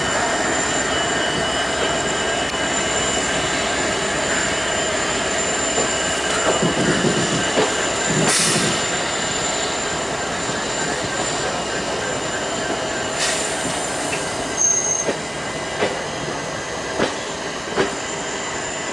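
Steel wheels of a moving passenger train squealing on the rails: a steady, high-pitched ringing over the rumble of the coaches, with a few sharp rail-joint clicks near the end.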